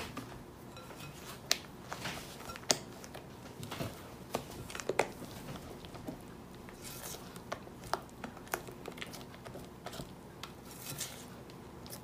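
A rubber spatula folding meringue into a thick batter in a glass bowl: soft scraping against the glass, broken by irregular sharp clicks and knocks as the spatula hits the bowl.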